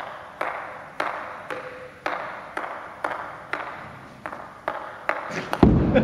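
A ping-pong ball bouncing on a table tennis paddle, about two sharp taps a second, each echoing in the hall. Near the end the taps come quicker, then a heavy thud, the loudest sound.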